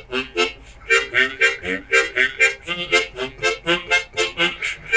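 Accompaniment harmonica played in quick rhythmic strokes, about four short notes a second, with low bass notes alternating with chords: bass and harmony played together on the one harmonica.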